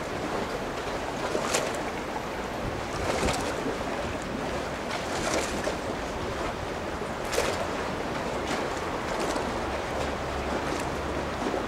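Outdoor wind and water noise: a steady rush with short louder gusts every second or two.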